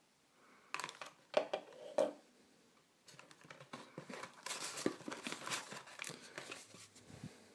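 Packaging from a mobile phone box being handled and unwrapped: a few sharp clicks or snaps about a second in, then a run of crinkling and rustling from about three seconds on.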